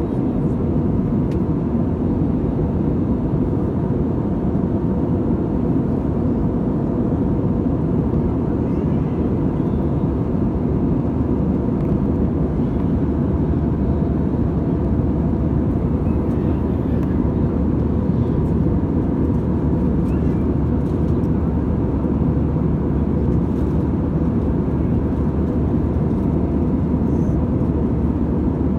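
Steady cabin noise inside an Airbus A320-214 in flight, heard from a window seat over the wing: the drone of its CFM56-5B turbofan engines and the rush of air past the fuselage, with a faint steady hum running through it.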